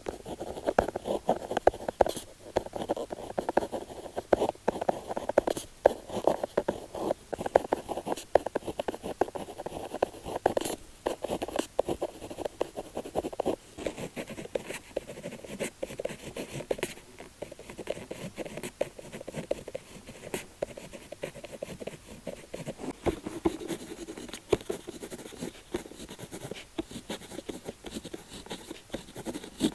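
Retractable rollerball pen writing on paper: continuous quick scratchy strokes of the pen tip across the page, dotted with short sharp ticks.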